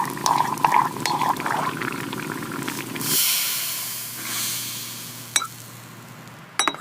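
Rain and water sounds: a low, splashing patter for about three seconds with scattered drip-like clicks, then a hiss that swells twice and fades away.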